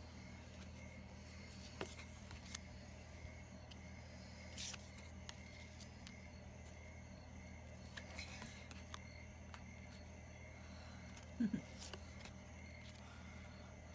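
Trading cards being handled and flipped through on carpet: scattered soft clicks and rustles, with a short louder knock about eleven seconds in, over a steady low background hum.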